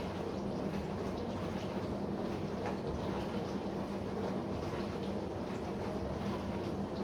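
Bosch SMV53M70EU/A5 dishwasher running with a steady hum. The owner traced the hum to the seal of the upper spray arm.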